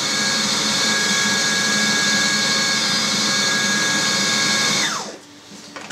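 Electric food processor's motor running steadily at speed, chopping liver and pork cheek into a smooth liver-sausage emulsion. About five seconds in it is switched off and winds down with a falling whine, followed by a sharp click near the end.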